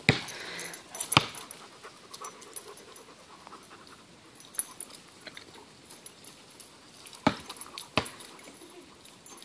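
Dogs panting during rough play, with a few sharp clicks, two of them close together near the end.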